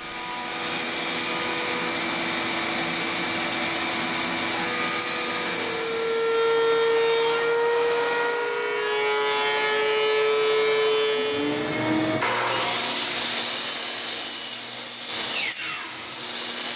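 Power woodworking machine milling rough cypress boards, running steadily with a sustained whine. The sound changes abruptly about twelve seconds in, and a falling sweep comes near the end.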